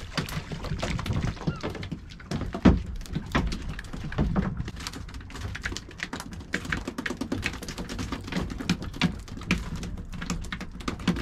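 Fishing reel being cranked, a fast, irregular run of clicks, over a low rumble of wind. One louder knock comes about two and a half seconds in.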